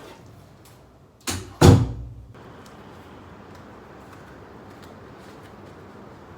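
Two quick knocks about a third of a second apart, the second much the louder and deeper, with a short ring-out, such as a door or cupboard banging shut.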